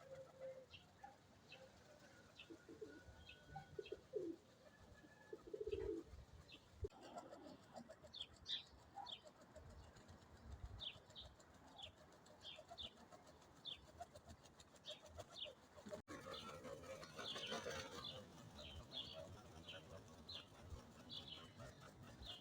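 Faint sounds from Krymak pigeons: a few low coos in the first six seconds, many short high chirps throughout, and a burst of wing flapping about seventeen seconds in.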